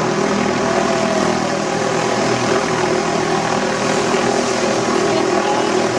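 Helicopter flying overhead, its rotor and engine giving a loud, steady noise.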